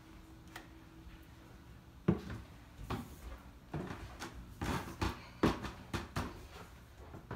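Footsteps climbing bare wooden stairs: a run of uneven knocks and thumps on the treads that starts about two seconds in.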